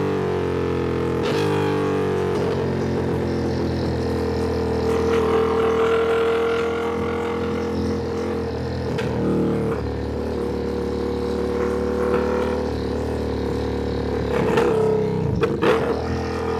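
Ducati Panigale V2's V-twin engine running on the move at fairly steady revs, the note shifting about nine seconds in, with a few short sharp changes in the sound near the end.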